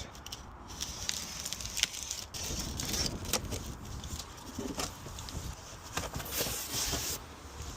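Battery packaging being handled and opened: scattered knocks, scrapes and rustles at irregular intervals.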